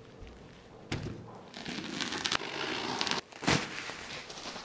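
Bubble wrap rustling and crinkling as it is pulled and peeled off a cardboard box, with a thump about a second in and a louder one past the middle.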